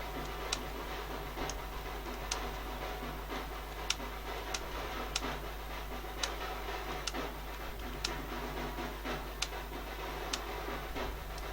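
Computer keyboard keys pressed one at a time in slow, irregular typing, about one or two sharp clicks a second, over a steady low hum.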